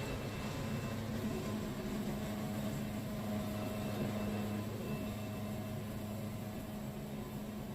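Wood-Mizer LT70 band sawmill running steadily, a low even machine hum.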